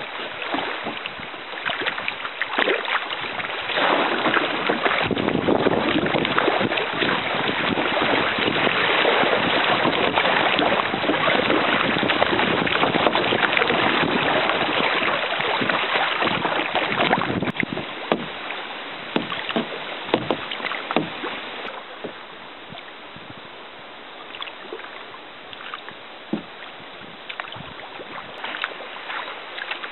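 Rushing water of a shallow river riffle around a kayak, loud and steady through the first half, dropping off suddenly a little past halfway. After that comes quieter flowing water with scattered small splashes and knocks.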